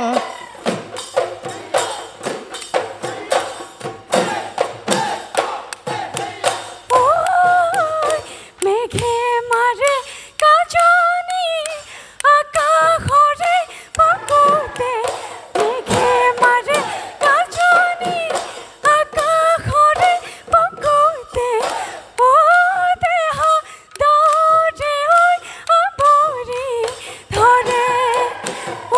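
A woman singing a Bihu song with the ornamented, yodel-like turns typical of Bihu singing, over dhol drum beats. The first several seconds are mostly drumming; the singing comes in about seven seconds in, in phrases with short breaks, while the drum strokes keep going.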